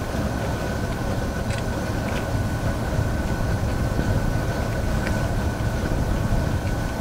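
Steady low rumble aboard a solar-electric boat under way, with a thin steady high whine and a few faint clicks.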